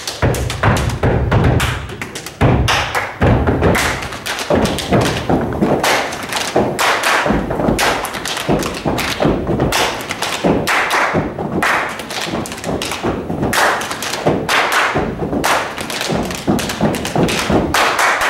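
Step dance routine: feet stomping on a stage floor in a quick, dense run of rhythmic thuds and taps.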